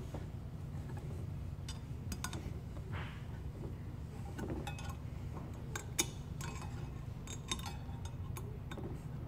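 Scattered light metallic clicks and clinks as the screws, hex key and metal heat-press plates are handled during assembly, the sharpest one about six seconds in, over a steady low hum.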